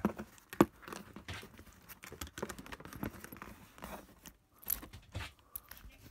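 Cardboard shipping boxes being handled: scattered knocks, scrapes and rustles, with a sharper knock about half a second in and a couple more near five seconds.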